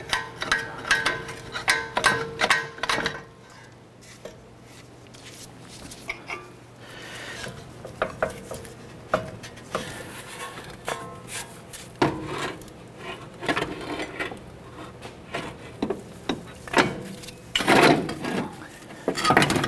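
Steel pry bar clinking and scraping against the steering knuckle as the front strut is pried apart from it and worked loose, metal knocking and rubbing on metal. A short ringing tone sounds at the start, and a louder run of knocks comes near the end as the strut shifts in the knuckle.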